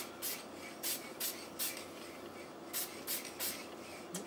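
Aerosol spray paint can hissing in about eight short bursts, with a gap of about a second in the middle, as light coats of paint are laid on a model truck cab.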